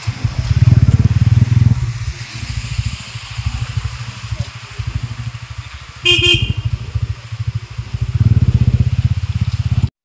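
Motorcycle engine running with a fast, even low pulsing, louder at the start and again near the end. A short horn beep sounds about six seconds in.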